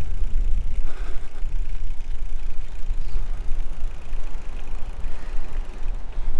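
Steady low rumble of wind buffeting the microphone while riding a gravel bike, mixed with the bike's rolling noise.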